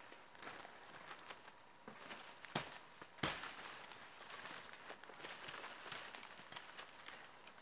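Footsteps crunching through dry leaf litter and twigs, an irregular run of crackles, with two louder sharp cracks about two and a half and three seconds in.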